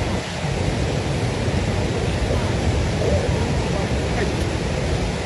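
Steady, loud rushing noise with faint voices in the background.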